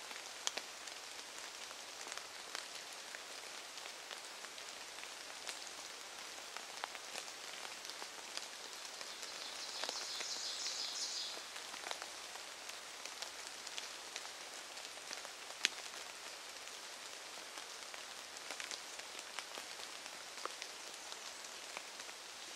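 Light rain pattering on leaves and leaf litter: a steady hiss scattered with small sharp drop ticks. A brief high trill sounds for about a second and a half, around ten seconds in.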